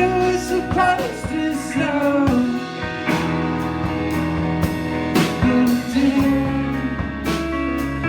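Rock music: a band playing, with singing over guitar and drums.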